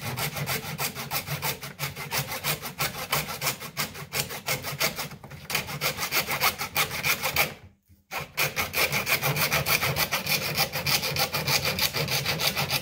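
Small handsaw cutting through a plastic transducer housing clamped in a vise: rapid, even back-and-forth strokes, with a brief pause about eight seconds in.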